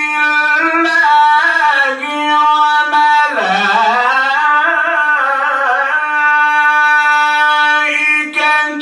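A male qari reciting the Quran in the melodic mujawwad style into a microphone: long held notes with wavering ornamental turns. About three and a half seconds in, the voice sweeps down low and climbs back up.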